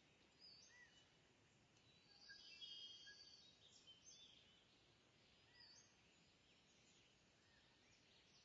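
Faint birdsong: scattered short chirps, with a louder warbling phrase about two to three seconds in, over a low background hiss.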